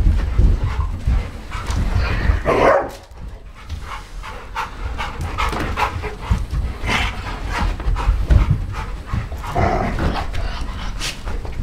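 Several dogs rushing about, panting, with a few short barks among many knocks and clicks as they scramble and bump into each other.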